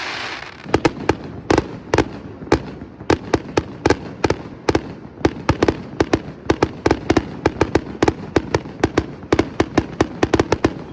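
Fireworks display: a rapid, irregular string of sharp bangs and crackling pops, several a second, with a hiss at the start that fades out within the first second.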